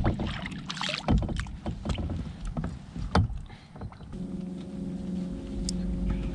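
Irregular knocks and splashy water sounds against a plastic fishing kayak as a small pike is put back over the side. About four seconds in, a steady low hum starts and holds.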